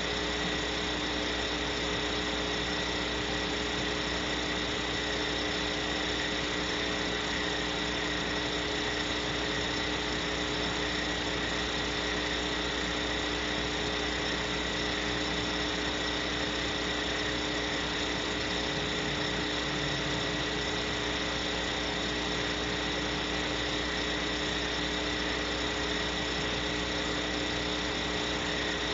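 Steady hiss with a few constant humming tones from an owl camera's live audio feed, with no calls or other events.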